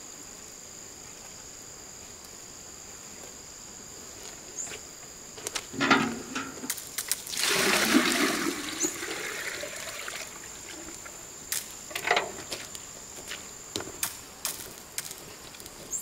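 Water tipped from a plastic bucket into a galvanised metal watering can: a loud gushing pour of about a second and a half, about halfway through, after a knock of the bucket being handled a couple of seconds earlier. Scattered light knocks and clicks follow.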